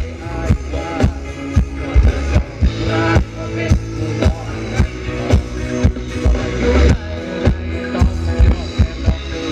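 Live band playing Thai ramwong dance music: a steady drum beat at about two beats a second over heavy bass, with a wavering melody line on top.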